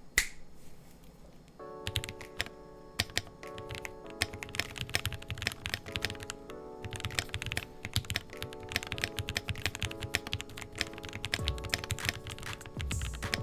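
Typing on a WhiteFox Eclipse high-profile aluminium keyboard fitted with Gateron Yellow linear switches and full foam: a fast, irregular run of keystrokes. Background music comes in about two seconds in.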